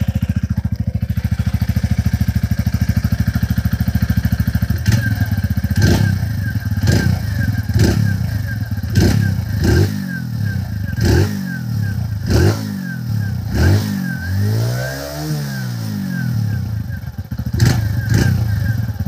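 TVS Radeon's 110cc single-cylinder four-stroke engine heard at the exhaust silencer. It idles steadily, then from about five seconds in the throttle is blipped in short revs about once a second, with one longer rev rising and falling about three-quarters of the way through.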